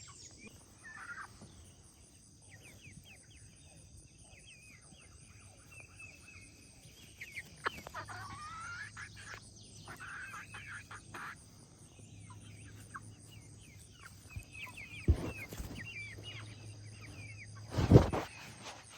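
Hens clucking and giving short, soft chirping calls on and off, with a few sharp thumps, the loudest one near the end.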